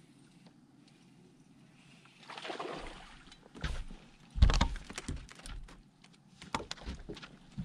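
A hooked spotted bass splashing briefly at the surface as it is lifted from the water, then several sharp knocks and thumps on the boat as the fish is swung aboard, the loudest about halfway through.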